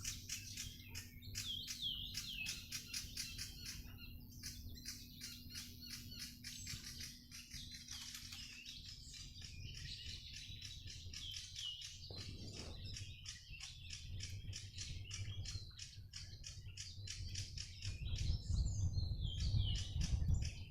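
Many small birds chirping and twittering rapidly, their calls overlapping densely. Underneath is a low rumbling noise that grows louder near the end.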